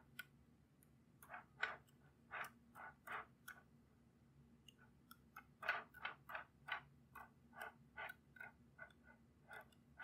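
Small magnetic balls clicking as they snap together, in short sharp clicks: about six spaced ones, then a quicker, irregular run of about fifteen from about halfway through.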